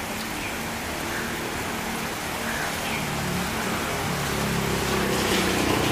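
Diesel locomotive running light as it approaches, its engine note growing louder towards the end, over a steady hiss of rain.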